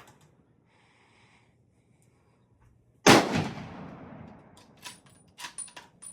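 A single gunshot about three seconds in, its report trailing away over a second or so, followed by a few short sharp clicks.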